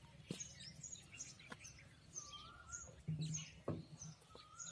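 Small birds chirping, with a few dull thuds of wet clay being kneaded and pressed by hand on a stone slab, about three in all. A brief low sound about three seconds in.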